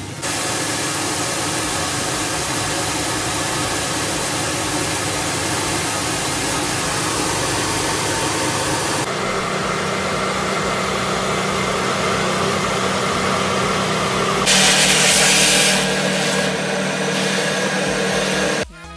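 Coin-operated rice polishing machine running with a loud, steady mechanical noise, polished rice pouring from its outlet into a bag. The sound changes about nine seconds in, swells briefly a little later, and stops suddenly near the end.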